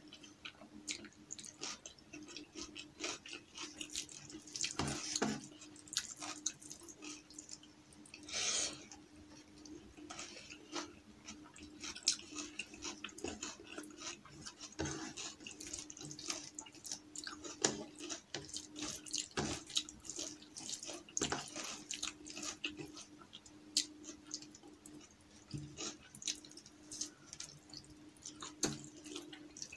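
Close-miked hand-eating sounds: fingers squishing and mixing rice with dal on a plate, and wet chewing and lip smacks, made up of many small irregular clicks and squelches. A faint steady low hum sits underneath.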